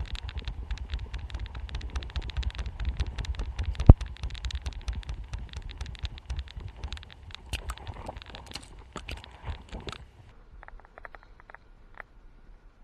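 Rubbing, rustling and rapid clicking from a camera worn by a goat as it moves and grazes through tall grass and brush, with a low rumble and one sharp knock about four seconds in. After about ten seconds it turns quieter, with only scattered clicks.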